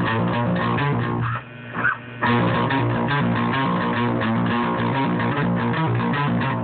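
Electric guitar played as a fast picked riff of low, rapid notes. The playing breaks off briefly about a second and a half in, with a single short note in the gap, then picks up again.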